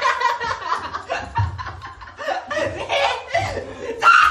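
Young men laughing in quick, repeated bursts, loudest near the end.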